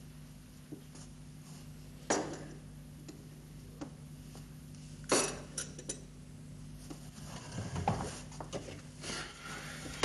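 China coffee cups and saucers clinking as they are set down on a wooden table, with a sharp clink about two seconds in and a louder one about five seconds in, followed by a few quick lighter clinks. Softer knocks and shuffling come near the end, over a steady low hum.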